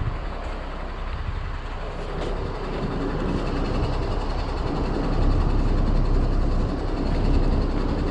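Heavy diesel truck engine running steadily nearby, a low rumble that grows louder about halfway through.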